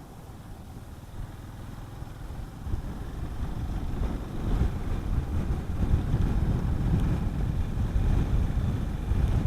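Riding sound of a Honda CB400SS single-cylinder motorcycle: engine running with wind noise over the microphone, growing louder from about three seconds in.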